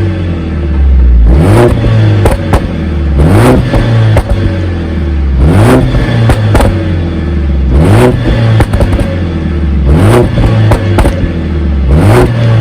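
Mercedes-AMG A45 S's turbocharged 2.0-litre four-cylinder engine blipped six times, about every two seconds, each rev rising sharply and dropping back to idle. A few sharp exhaust pops and crackles follow some of the blips as the revs fall.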